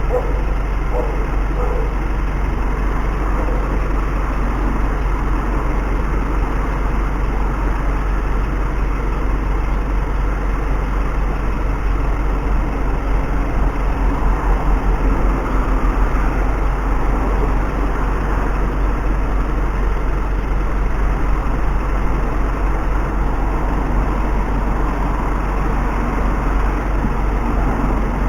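Steady engine and road rumble of a moving car, picked up by its dashcam inside the cabin.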